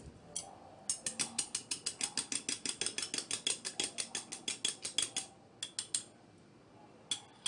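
Two eggs being beaten by hand in a bowl, the utensil clicking rapidly against the bowl at about eight strokes a second for some four seconds, then a few more short strokes after a pause.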